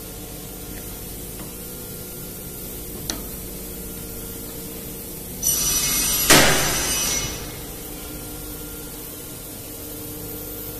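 Pneumatic clamp of a plastic board butt welding machine: past the middle, a loud hiss of air for about two seconds, with a sharp metal clank partway through as the clamp comes down. Under it runs a steady hum, with a single click about three seconds in.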